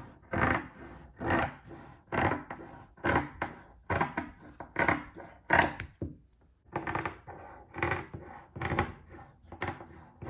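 Scissors cutting through fabric, one stroke about every second in a steady rhythm, with a short pause a little past halfway.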